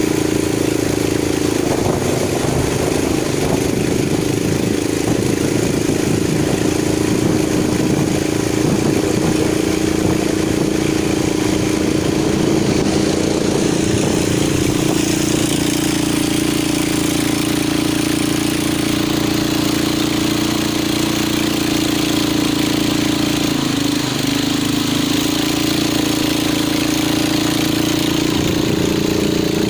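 Long-tail boat engine running steadily under way, its pitch dipping briefly late on.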